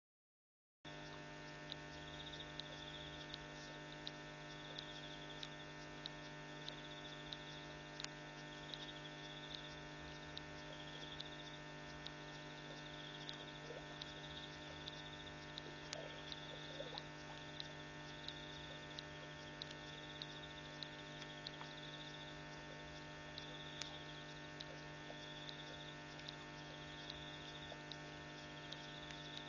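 Steady electrical hum from the camera's audio feed, a dense set of unchanging tones, beginning about a second in. Over it are a faint high sound that pulses about once a second and scattered sharp clicks.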